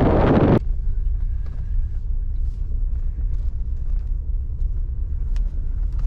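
Strong wind on the microphone, cut off suddenly just over half a second in, leaving a steady low rumble with a few faint ticks.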